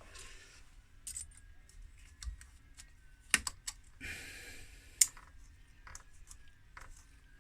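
Clamp being handled and fitted around a rubber stern-drive shaft seal: scattered light clicks and brief rubbing, with two sharper clicks near the middle.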